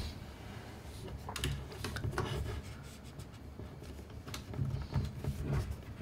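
Handling noise from a Gigabyte Aorus 17X laptop being moved on a desk while its power cable is plugged back into the rear port: soft rubs with scattered light clicks and knocks.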